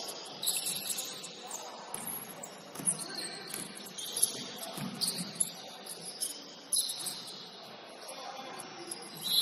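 Basketball shoes squeaking on a gym floor during play, in short repeated high chirps, with a few thuds from the ball bouncing.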